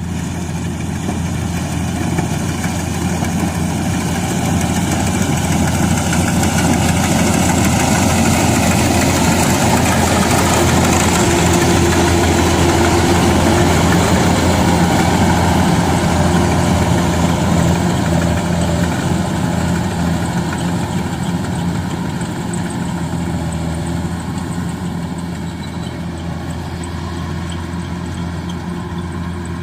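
Engine of a rice combine harvester running steadily with a dense mechanical hiss over it. It grows louder over the first several seconds, peaks near the middle, then eases off.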